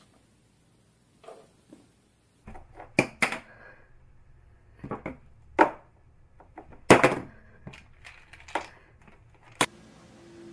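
Near silence for about two seconds, then a string of sharp knocks and clatters, the loudest about seven seconds in: small objects being knocked over by a cat and hitting hard surfaces.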